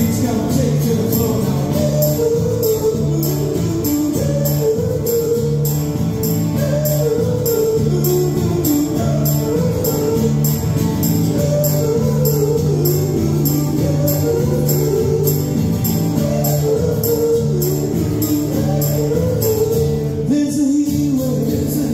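Live acoustic and electric guitars with a man singing, over a small kick drum and jingling tambourine-like strokes keeping a steady beat.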